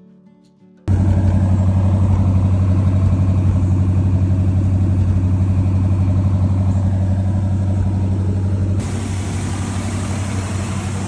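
1959 Ford Thunderbird's V8 engine idling steadily with a deep, even hum. It starts abruptly about a second in and turns slightly quieter and hissier near the end.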